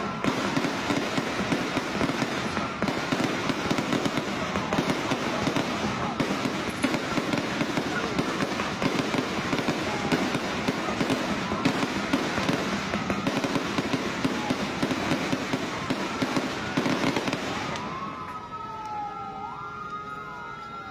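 Firecrackers crackling densely and continuously, with whistling tones gliding up and down now and then. About three seconds before the end the crackling thins out and the whistles stand out.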